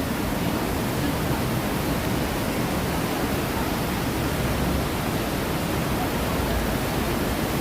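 Steady rush of falling water from artificial waterfalls and river rapids, an even wash of sound with no breaks.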